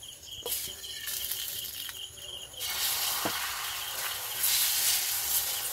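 Beaten egg sizzling in oil on a hot iron griddle. The sizzle starts about halfway through as the egg goes onto the pan and gets louder near the end.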